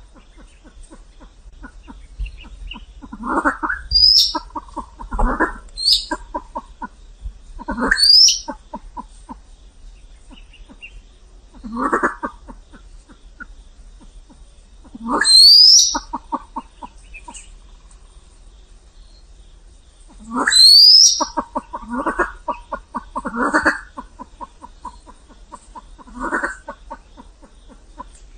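Silver pheasants calling: a run of rapid clucking notes every two or three seconds, with short, high, rising whistles among them.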